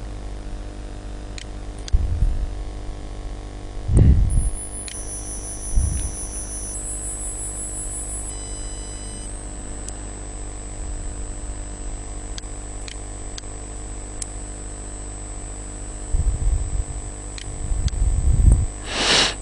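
Steady electrical hum and hiss from the recording setup, with a faint high whine. Scattered faint clicks and a few low thumps are heard, and there is a loud noisy burst near the end.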